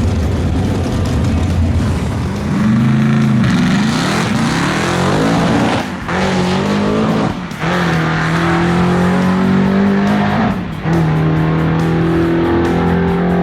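Drag racing car's engine idling low, then revving up and launching, pulling hard down the strip. Its note breaks off briefly three times, the way gear shifts do, and holds a steady pitch between them.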